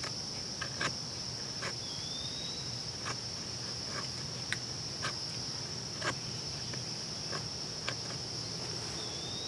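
A knife cutting and shaving fatwood (resinous pine) into kindling: short, sharp cuts and cracks at irregular intervals, roughly one a second. Steady high-pitched cricket chirring runs underneath and is the loudest thing throughout.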